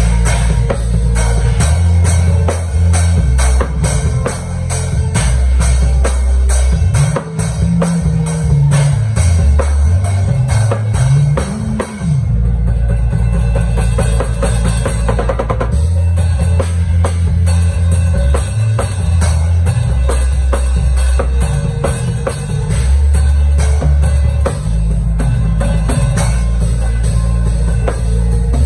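Drum kit played in a steady groove (kick drum, snare and cymbals) over music with a stepping bass line, which makes a short rising run shortly before the middle.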